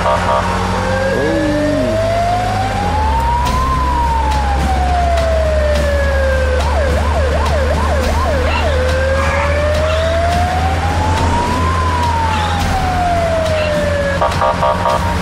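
Police car siren wailing in a slow rise and fall, switching to a short run of fast yelps about seven seconds in, then wailing slowly up and down again. A brief pulsing tone sounds near the start and again near the end, over a steady low engine drone.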